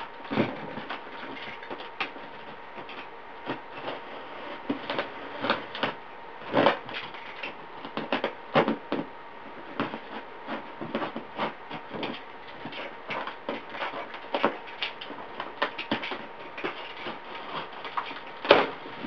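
Utility knife cutting and scraping along the packing tape on a cardboard box: an uneven run of short scratches and scrapes, with a few louder strokes. Near the end, the cardboard flaps are pulled open with a loud tearing scrape.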